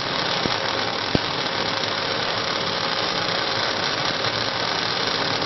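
Welding arc of an automatic pole-welding machine running a seam on a polygonal steel light pole: a steady hiss, with two sharp pops about half a second and a second in.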